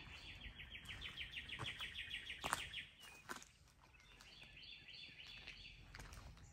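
A small bird's rapid, even trill, about ten notes a second, heard twice: once to nearly three seconds in, and again shortly before the end. A couple of light clicks fall in the middle.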